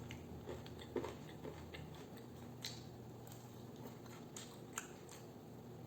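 Faint chewing of fried chicken wings, with a few soft clicks and mouth noises scattered through, over a low steady hum.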